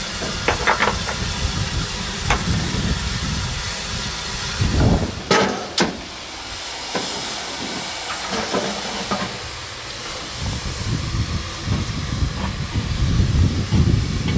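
Stationary steam locomotive, the 1909 A 428, hissing steadily with a low rumble underneath. A few metallic clinks and knocks break through, the two loudest about five to six seconds in.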